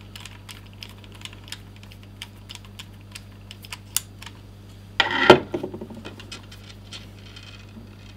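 Small screwdriver turning screws into a 2.5-inch hard drive's mounting holes: a scatter of light, sharp metal clicks. About five seconds in, a loud half-second clatter.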